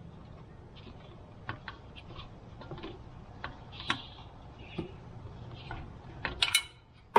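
Scattered light clicks and taps of small metal tools and parts being handled, with a few louder clicks near the end.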